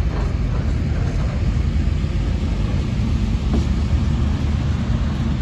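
Cement hopper wagons of a freight train rolling past on the rails with a steady low rumble, joined near the end by the diesel locomotive TR08 as it comes alongside.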